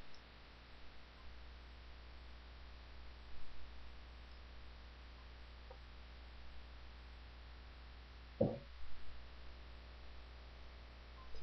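Steady low hum under quiet room tone, with a short faint vocal sound about eight seconds in.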